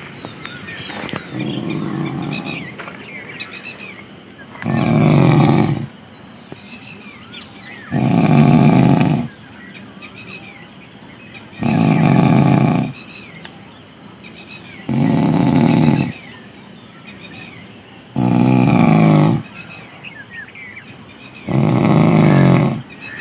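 A man in deep sleep snoring loudly and regularly, one snore about every three seconds, each lasting about a second, seven in all, the first weaker than the rest.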